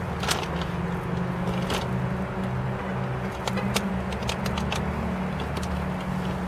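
Steady low hum of a car's engine idling, heard from inside the cabin, with a few light clicks scattered through it.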